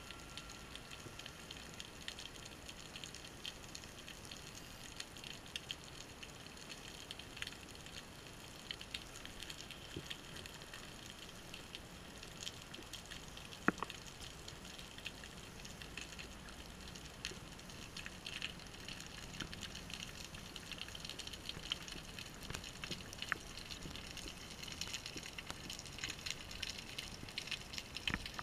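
Underwater background noise as heard through a housed action camera: a steady hiss with a crackle of many faint ticks, and one sharper click about 14 seconds in.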